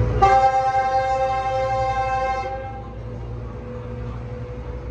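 Train horn sounding one long chord of about two and a half seconds, then cutting off, over the low rumble of Metrolink bilevel coaches rolling past.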